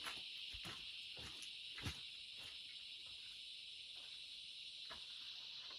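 A steady, high-pitched chorus of insects chirring in the bush, with a few soft footsteps or knocks in the first half, the loudest about two seconds in.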